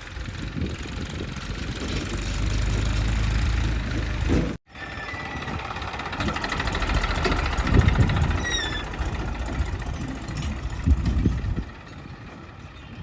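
JCB 3DX backhoe loader's diesel engine running and working, swelling in level for a couple of seconds before a brief break in the sound, then running on with a few knocks and a short squeak.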